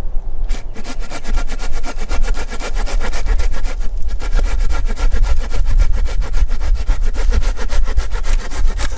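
Silky folding pruning saw rasping through a dead wooden limb in rapid back-and-forth hand strokes, with a brief break about four seconds in, over a steady low rumble.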